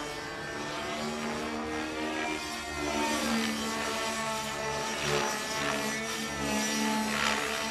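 HWC 3D Extreme Pro 29cc two-stroke gasoline engine of a Century Radikal G30 RC helicopter running at flying speed, with the rotor blades swishing. Its pitch rises and falls as the helicopter manoeuvres, swelling louder a couple of times in the second half.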